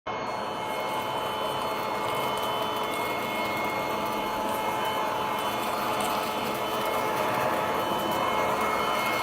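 Promark household vacuum cleaner running steadily: a motor whine over a rush of air, starting abruptly.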